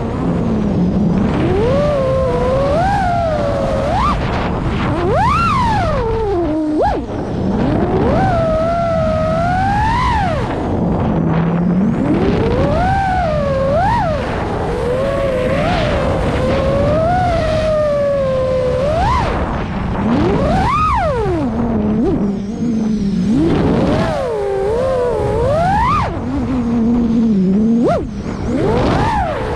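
FPV quadcopter's electric motors and propellers whining, the pitch constantly swooping up and down as the throttle is pushed and chopped.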